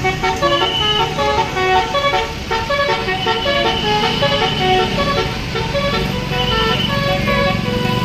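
Tourist bus's basuri telolet horn playing a fast tune of short notes that step up and down. The bus's engine and street traffic rumble underneath, the rumble growing in the second half.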